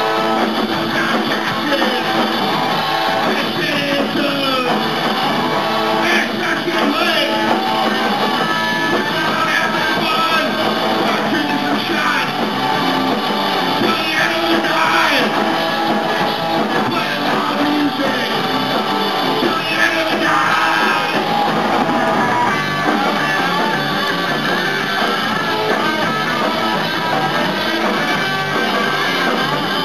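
Live rock band playing: electric guitar, bass guitar and drums, with a singer's vocals coming in at several points over the steady, loud band.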